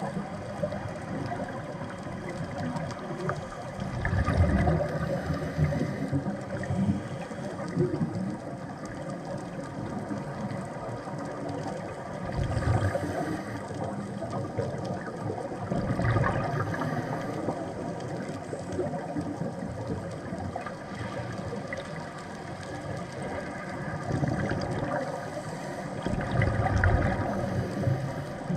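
Underwater sound heard while diving: steady water noise with several faint steady tones running through it, swelling louder a few times, about four seconds in, around twelve and sixteen seconds in, and near the end.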